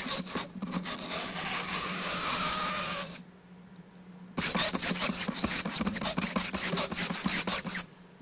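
Fingernails scratching down a chalkboard, played as a sound effect: a harsh, scratchy screech in two passes with a pause of about a second and a half between them.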